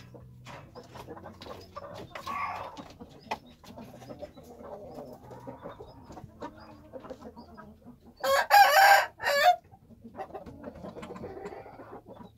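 Rooster crowing once, loudly, about eight seconds in, with a short break near its end. Chickens cluck and murmur softly around it.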